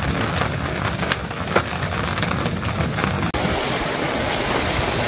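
Hailstones and heavy rain pelting down, with many sharp separate hits of hail over a steady rush. About three seconds in, the sound changes abruptly to an even, steady downpour.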